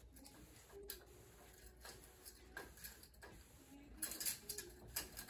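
Horizontal window blind slats clicking and rattling irregularly as a kitten climbs them, with a louder flurry of clacks about four seconds in.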